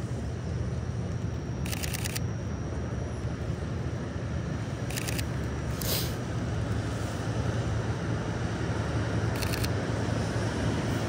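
A camera shutter firing three short bursts of rapid clicks, about two, five and nine seconds in, with a single sharper click near six seconds. Under it, a steady low rumble of rain and street noise.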